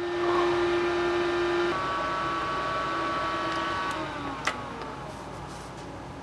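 Electric motor load running off an 18 V lithium tool battery at the end of a discharge test, with a steady hum. The hum shifts about two seconds in, then drops in pitch and fades from about four seconds in as the battery's voltage falls off fast at the end of its charge, with a sharp click in the middle.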